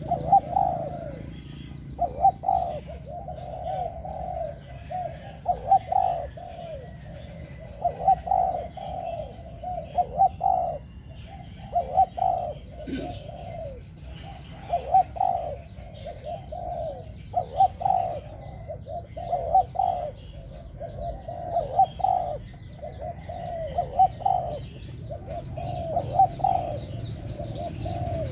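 Spotted dove cooing over and over, a low phrase of a few notes about every two seconds. Small birds chirp faintly and quickly in the background.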